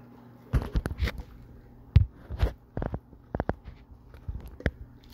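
A person gulping a soft drink from a large paper cup: a string of irregular short, low swallowing sounds, about a dozen in all.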